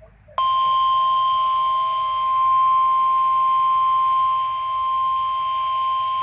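NOAA Weather Radio 1050 Hz warning alarm tone: one steady, unbroken beep that starts about half a second in. It is sounded as the weekly test of the weather radio alarm system.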